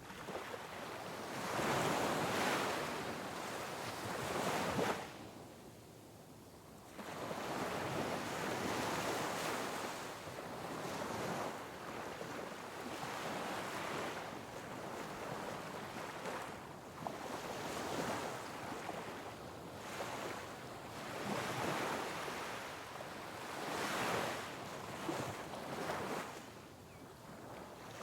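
Sea waves breaking on rocks: surging washes of surf that rise and fall. A big surge builds in the first seconds and drops away sharply about five seconds in, then another swell comes in about two seconds later and is followed by a run of smaller surges.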